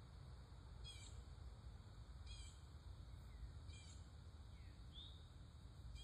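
Songbird in a yard repeating a short, quick call about every one and a half seconds, with a brief rising note a little before the end. A faint, steady low rumble of distant road traffic lies underneath.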